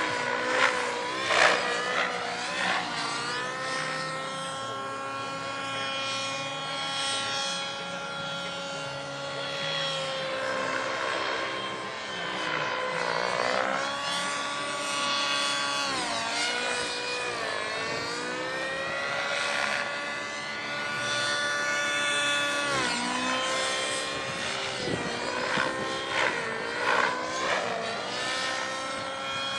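Align T-Rex 700 radio-controlled helicopter in flight: a steady high whine of rotor and drivetrain with many overtones, dipping and recovering in pitch several times. Short loud bursts come in the first few seconds and again near the end.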